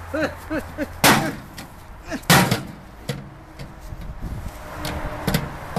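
Two loud, sharp bangs a little over a second apart as the burnt cell phone is struck to finish it off, then a lighter knock near the end. A repeating warbling sound and a low hum stop at the first bang.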